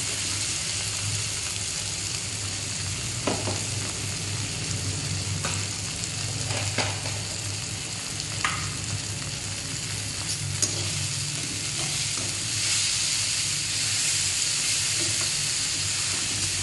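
Sliced onions and tomato sizzling in oil in a heavy-bottomed kadai on a low flame. A slotted spoon stirs them, knocking sharply against the pan a few times.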